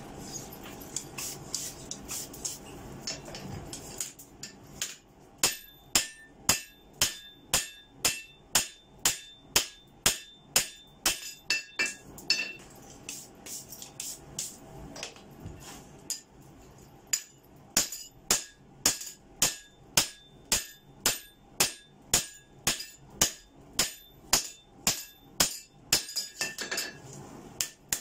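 Blacksmith's hand hammer striking a red-hot Damascus steel knife blade on the anvil, flattening it with a hardy flatter. Steady, evenly spaced blows with a metallic ring, about two a second. They start about four seconds in, pause for a few seconds midway, then resume.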